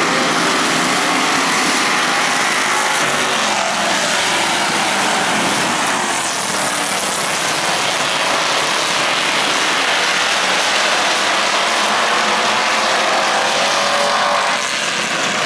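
A pack of street stock race cars running around an oval track, a dense continuous engine din with engine pitch rising and falling as cars pass.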